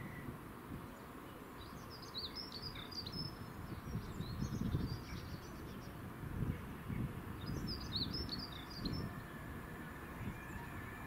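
Small birds twittering: two short bursts of rapid high chirps, about two seconds in and again about eight seconds in, over a low background rumble.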